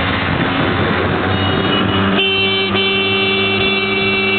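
A vehicle horn sounds in one long steady blast from about two seconds in, over the steady running of motor scooter engines and road noise.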